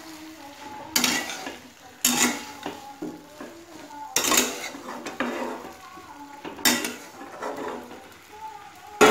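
Metal spatula stirring prawns and onions in a kadai, scraping and clanking against the pan in irregular strokes every second or two. A sharp clank near the end is the loudest.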